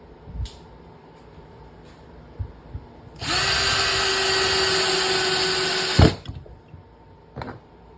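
Hart 20V half-inch hammer drill driving a screw: the motor runs at a steady speed for about three seconds and stops with a sharp knock as the screw is driven home. A few light handling clicks come before and after.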